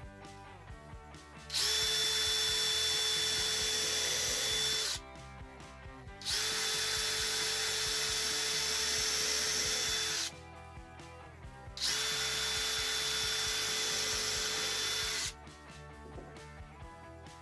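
Power drill running at full speed in three runs of about three to four seconds each, with a steady whine that dips briefly as each run starts.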